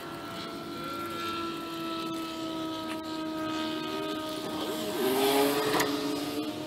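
Aerosol spray-paint can hissing in a burst about five seconds in. Under it runs a steady engine drone whose pitch sinks slowly.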